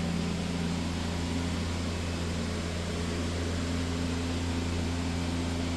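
Enco vertical milling machine running steadily, a low, even motor hum with a faint steady whine above it.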